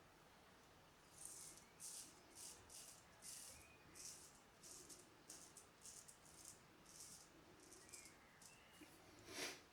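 Straight razor (Filarmonica 4/8) scraping through lathered stubble in short, light strokes, about two a second, faint. A louder short burst of noise comes near the end.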